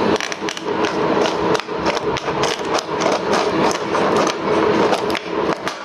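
Scissors cutting through a stiff plastic blister pack and its card backing, a quick irregular run of crunching snips and crackles, several a second.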